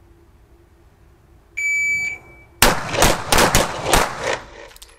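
An electronic start-signal beep lasting about half a second, then a fast string of about five handgun shots within about a second and a half, including a stainless revolver, ringing off the walls of an indoor range.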